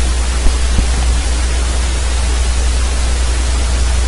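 Steady loud hiss from the recording microphone over a low electrical hum, with two faint clicks about half a second apart near the start.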